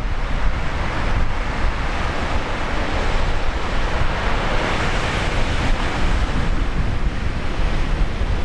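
High typhoon surf breaking on the shore. The wash of water swells to a peak about halfway through and eases off, while wind buffets the microphone with a constant low rumble.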